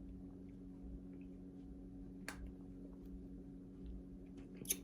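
Quiet room tone with a faint steady low hum, broken by a few soft clicks, one in the middle and a small cluster near the end.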